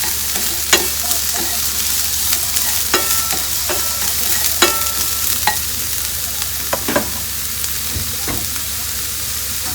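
Chopped garlic sizzling in hot oil in a frying pan, a steady hiss. A utensil stirring it clicks and scrapes against the pan now and then, with a few short ringing scrapes near the middle.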